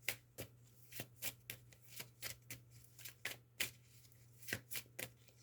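Tarot cards being shuffled and handled by hand: a run of soft, irregularly spaced card snaps and clicks.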